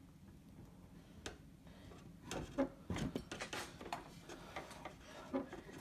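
Clunks, knocks and scrapes of a bare 163 cc snowblower engine being handled and shifted on a wooden workbench. They come as a quick cluster from about two seconds in, loudest around three seconds, with one more knock near the end.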